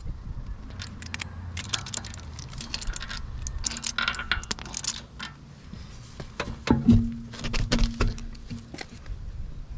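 Small metal parts clinking and rattling as wheel studs and hardware are handled, with a few louder knocks around seven to eight seconds in.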